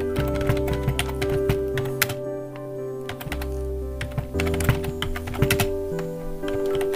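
Typing on a computer keyboard: quick runs of key clicks, thinning out for a moment about two seconds in, over background music with sustained notes.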